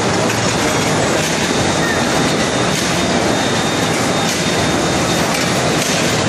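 Automatic corrugated carton folder-gluer line running, a steady dense mechanical noise, mixed with the general din of a busy exhibition hall and faint voices.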